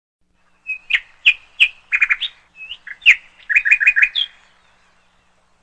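A songbird chirping: a string of short, sharp chirps with a quick run of four or five near the end, lasting about three and a half seconds.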